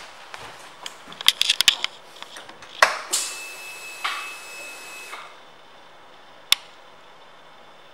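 Harley-Davidson Street Glide Special switched on before starting: a flurry of sharp clicks, then a steady high whine for about two seconds as the ignition comes on and the gauges light, typical of the fuel pump priming; a single sharp click follows near the end.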